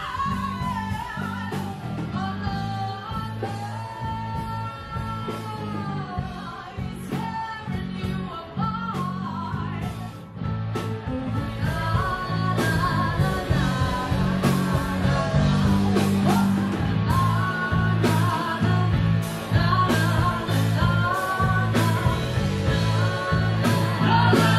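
Rock song: a voice singing over guitar with a steady beat.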